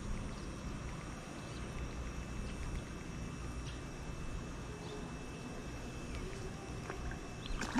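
Quiet, steady outdoor background with a low rumble, a faint steady high tone and a few faint ticks. Right at the end the first of a sudden loud splash begins as a fish strikes the lure at the surface.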